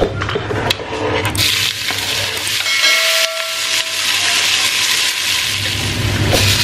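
Chopped onions sizzling as they fry in a steel pot, stirred with a wooden spoon; the sizzle starts about a second in, after a few light clinks. A short steady tone sounds briefly about halfway through.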